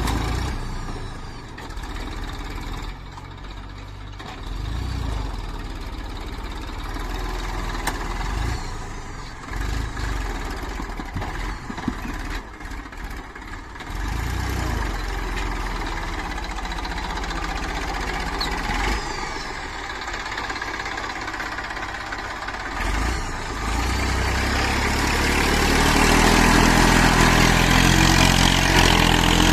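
Heavy diesel machinery working: an engine running and changing revs, with a few sharp knocks, and running louder near the end.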